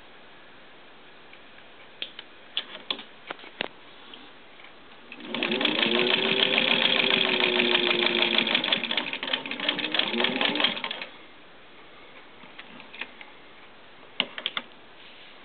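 Singer 15-91 sewing machine, with its gear-driven motor, running for about six seconds: the motor whine rises as it speeds up, holds steady, then falls as it slows and stops. A few light clicks come before and after the run.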